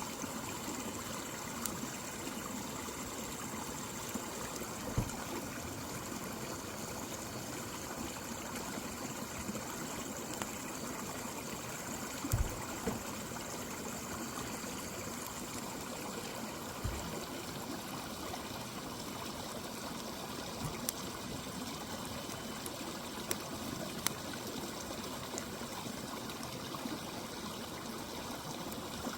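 Mountain river flowing steadily, with a few sharp pops and cracks from a crackling campfire scattered over it.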